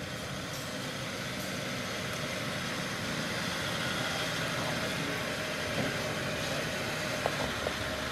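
Land Rover Discovery 4 engine running steadily as the 4WD crawls slowly up a rutted rock-and-dirt climb, with a few sharp clicks in the second half.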